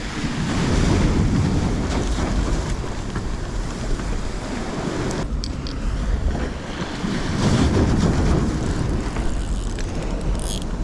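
Wind buffeting the microphone in gusts over the wash of waves breaking on the shore.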